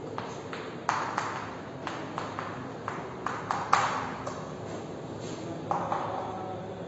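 Chalk tapping and scraping on a chalkboard as it writes, in short irregular strokes with sharp clicks; the loudest tap comes a little before four seconds in.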